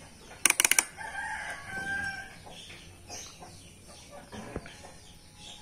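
Rotary range selector of a Sanwa N-501D analog multitester clicking quickly through its detents, about six sharp clicks in a row about half a second in. Just after, a chicken calls, with faint bird chirps later.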